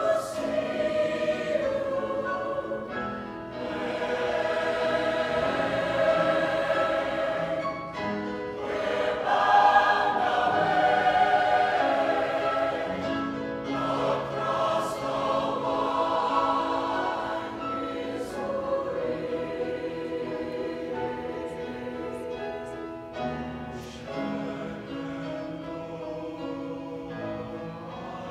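Large mixed choir singing in sustained phrases with short breaks between them. The singing grows softer in the second half.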